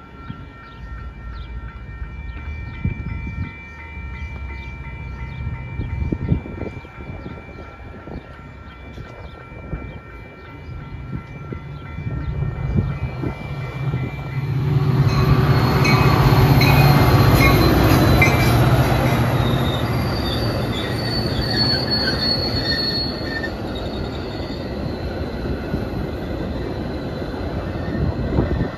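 Railroad crossing bell ringing steadily with the gates down, then a Metra commuter train coming up and passing over the crossing. The train grows louder from about halfway, is loudest a few seconds later as the bilevel cars go by, and keeps rumbling past to the end.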